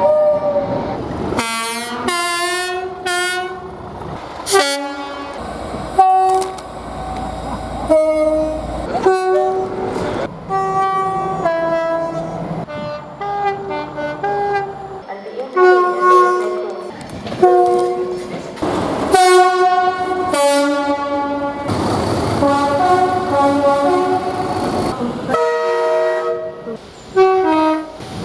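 British train horns sounding in quick succession, one clip after another. Most are short two-tone blasts stepping between a high and a low note, with abrupt cuts between trains.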